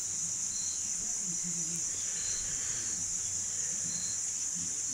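Steady high-pitched chorus of insects such as crickets, with a short, lower chirp repeating about every second and a half.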